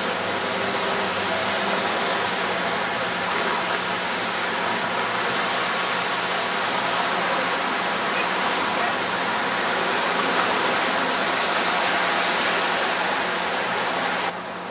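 City street traffic: a steady wash of road noise as cars and a van drive past, with a brief high squeal about seven seconds in.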